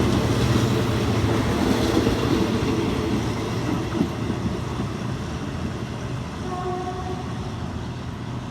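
Diesel-electric locomotive and its train running along the track: a steady low engine drone over rail rumble, slowly getting quieter. A faint brief tone sounds about seven seconds in.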